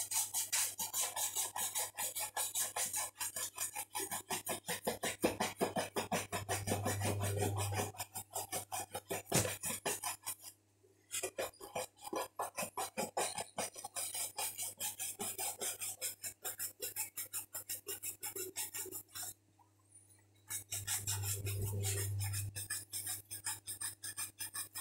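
Bristle shoe brush swept quickly back and forth over a leather shoe, several strokes a second, buffing the wax polish up to a shine. The brushing stops briefly twice.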